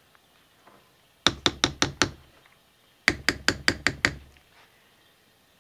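A spatula rapped against the rim of a crock pot in two quick runs of five sharp knocks, shaking thick soap batter off the spatula.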